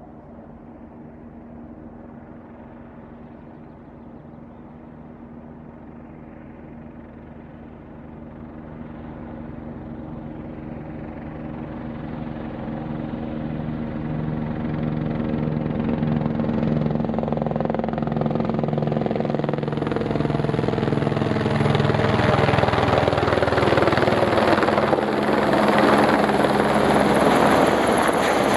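A helicopter carrying an underslung sling load flies in. Its rotor and turbine go from faint to loud as it comes close, with a pulsing rotor beat growing steadily stronger over the second half.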